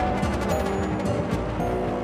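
Background music: held tones over a low bass with short percussive hits.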